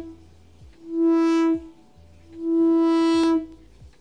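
Serum software synthesizer holding a single note whose filter cutoff is opened and closed by a pulsing hand gesture over a Sway MIDI controller: the tone swells in, brightens, then dulls and fades, twice about a second and a half apart.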